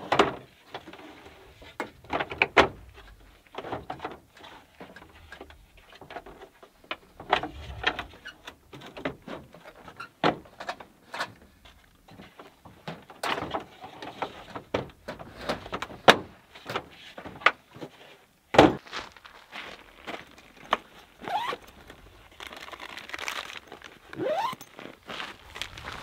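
Camping gear being handled on a pickup's tailgate: scattered clicks, knocks and thuds as a hard case is opened and items are lifted out, the heaviest knock about two-thirds of the way through. Two short rising squeaks come near the end.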